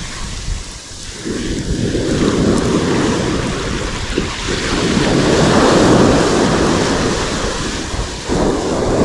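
Surf breaking and washing up the beach. It swells to its loudest around the middle and then eases, with wind buffeting the microphone.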